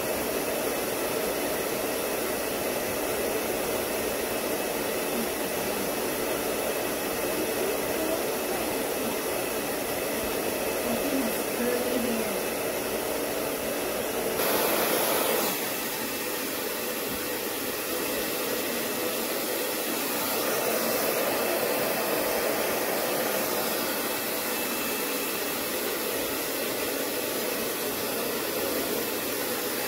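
Hand-held hair dryer blowing steadily on a dog's damp coat: an even rush of air with a faint steady whine, briefly louder about halfway through.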